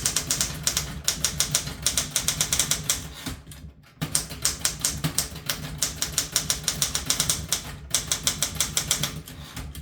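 Smith Corona Galaxie Deluxe manual typewriter being typed on at a quick, steady pace, each keystroke a sharp clack of the typebar striking the platen, with two short pauses in the typing.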